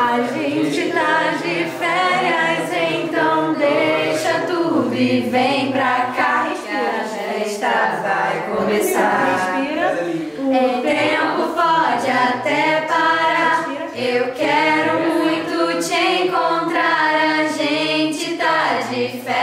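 A small group of voices singing a song together in sustained sung notes.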